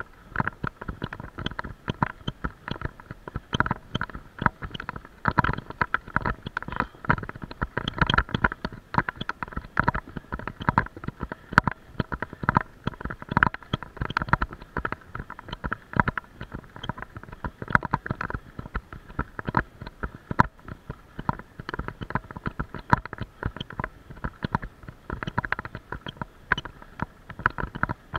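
Dense, irregular rattling and knocking from a bike-mounted camera shaken by the bicycle rolling over bumpy, patched asphalt.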